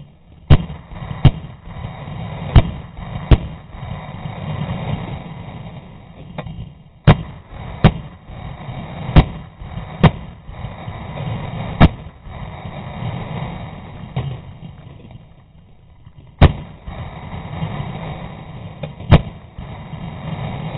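An AR-style rifle fires eleven sharp shots at uneven intervals, from under a second to several seconds apart. A steady background noise runs between them.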